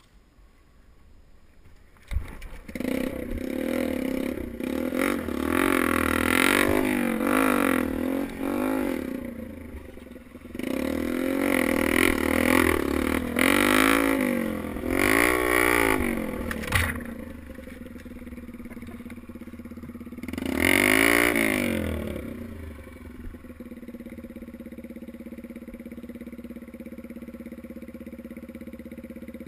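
Dirt bike engine starting about two seconds in, then revved up and down repeatedly as it rides off, settling to a steady idle for the last several seconds.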